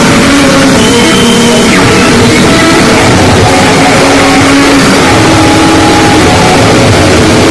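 Harsh noise music: a dense, unbroken wall of distorted noise at full loudness, with short thin tones flickering in and out of it.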